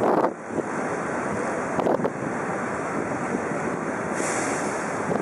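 Steady rushing of wind on the microphone, with short gusts at the start and again about two seconds in.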